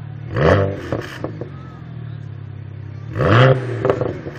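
Tuned, decatted BMW 1M Coupé's twin-turbo straight-six idling on its lightweight exhaust. It is blipped twice, about half a second in and again about three seconds in, and each blip is followed by a few sharp pops from the exhaust.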